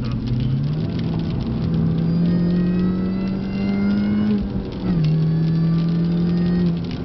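Mini Cooper S R53's supercharged 1.6-litre four-cylinder engine heard from inside the cabin, pulling under throttle: the revs climb steadily with a thin high whine rising alongside, dip briefly about four and a half seconds in, then hold before easing off near the end.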